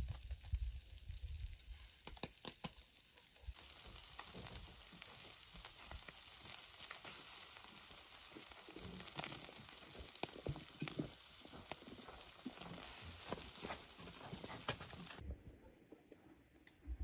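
Fish frying in hot oil in a pan: a steady sizzle with small crackles and pops, after a few light knocks in the first seconds. The sizzle stops abruptly near the end.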